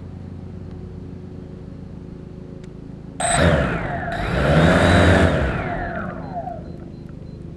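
A vehicle passing by: it comes in suddenly about three seconds in, swells and then fades out over about four seconds, over a steady low hum.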